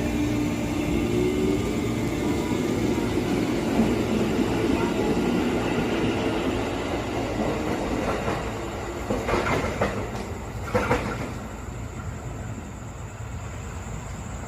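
JR 203 series electric commuter train running on the tracks with a steady rumble and a faint motor hum, a few knocks about nine to eleven seconds in, then dying down.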